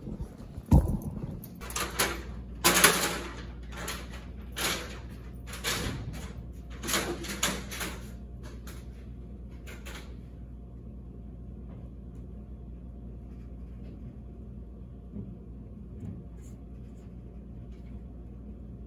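A run of knocks and scraping rubs of handling, the loudest about a second in and near three seconds, dying away by about ten seconds. A steady low hum starts about a second and a half in and then continues alone with only faint ticks.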